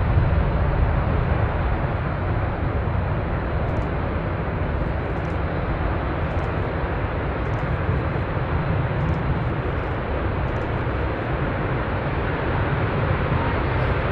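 Jet airliner engines running at high power on the runway: a steady, even rumble with a rushing noise, slightly louder at the start.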